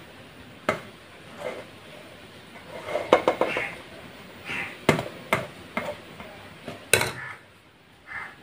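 A steel serving spoon scooping cooked rice out of a metal pressure cooker and knocking against the cooker and a steel plate: a string of sharp metal clinks, the loudest about 3, 5 and 7 seconds in, with soft scraping of rice between.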